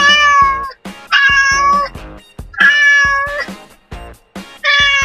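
Four cat meows, each just under a second long with a slight drop in pitch at the end, over background music with a steady beat.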